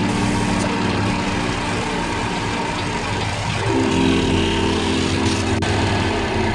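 Wood lathe running steadily with a bowl spinning on it, under sustained background music chords that change about four seconds in.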